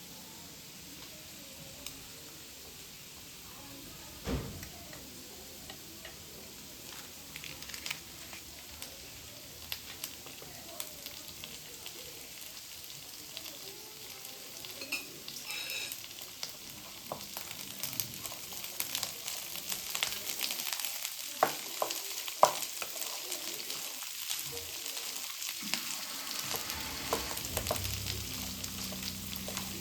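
Food sizzling as it fries in a pan while being stirred, with frequent light clicks and scrapes of the utensil against the pan and one dull knock about four seconds in. The sizzle grows louder in the second half.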